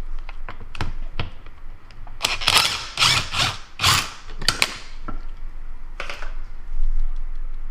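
Ratchet wrench clicking in short strokes on a seatbelt-clip bolt, with scattered clicks and knocks of metal parts being handled; the strokes come thickest a couple of seconds in.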